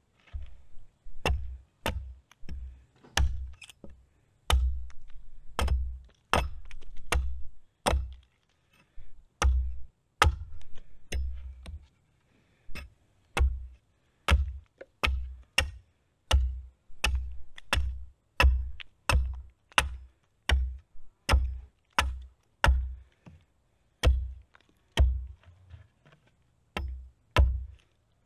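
Cold Steel Trail Boss axe chopping a point onto the end of a green wild cherry limb resting on a stump: a steady run of sharp chops, about one to two a second, with a short pause about twelve seconds in.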